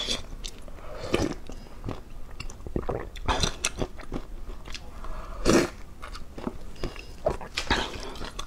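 Close-miked eating sounds: a woman sipping and slurping from a ladle and chewing, in irregular short bursts, the loudest about five and a half seconds in.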